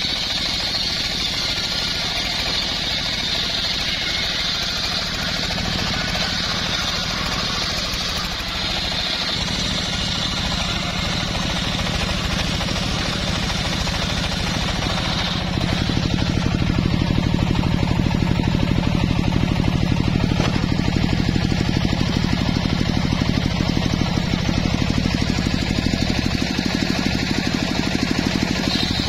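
Engine-driven homemade circular saw bench running steadily while its blade rips lengthwise through a mahogany log. A high cutting hiss sits over the machine's low steady running for roughly the first half and stops about halfway through. After that the engine sound is louder.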